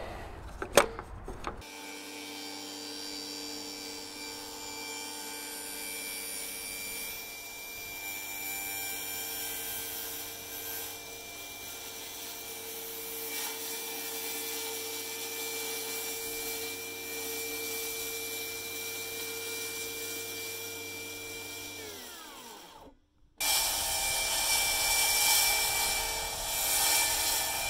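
Portable table saw running with a steady motor whine while a plywood panel is lowered onto the spinning blade for a plunge cut. The motor winds down about 22 seconds in. After a brief silence the saw runs again, louder and noisier, cutting.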